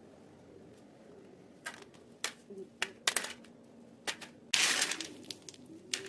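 Jaggery-coated makhana balls put down one by one on a stainless steel plate: a series of light clicks and taps, with a short clatter of several at once about four and a half seconds in.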